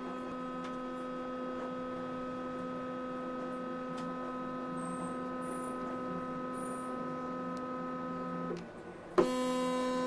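Microwave oven transformer humming with a steady electrical buzz while its heavy-cable secondary drives current through a steel spring coil. The hum stops about eight and a half seconds in, then starts again with a click just after nine seconds.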